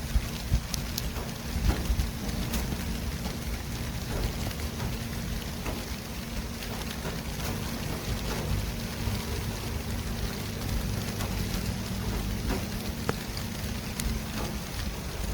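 City street traffic ambience: a steady hiss over a low rumble of traffic, with scattered light ticks. A steady low engine hum runs under it and stops near the end.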